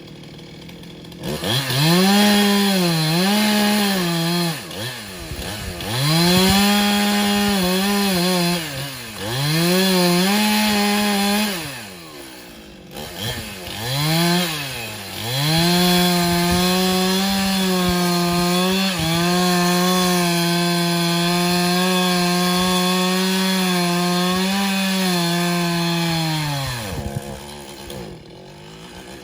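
Gas chainsaw revved in several short bursts, dropping back to idle between them, then held at high revs for about ten seconds while cutting through a tree limb, and falling back to idle near the end.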